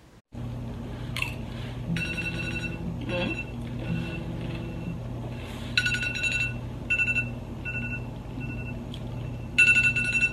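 Smartphone ringtone playing a repeating melody of high chiming notes, an incoming call from an unknown number, with a steady low hum underneath.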